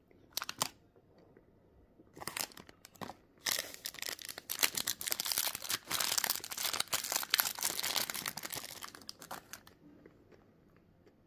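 Clear plastic candy wrapper crinkling and tearing as it is opened by hand: a couple of short rustles, then dense crinkling for about six seconds from about three and a half seconds in, fading near the end.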